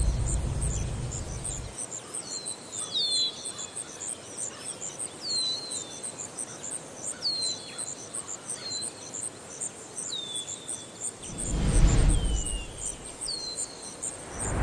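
Crickets chirping in a fast, even pulse, with birds calling in short falling notes every second or two. A low rumble fades out in the first couple of seconds, and whooshes swell about twelve seconds in and again, loudest, at the very end.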